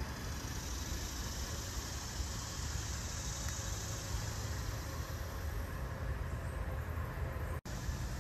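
Steady outdoor background noise: a low rumble with a hiss over it, broken by a split-second gap of silence near the end.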